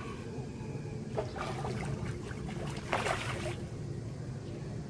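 A steady low motor hum with a few short splashy noises, the loudest about three seconds in.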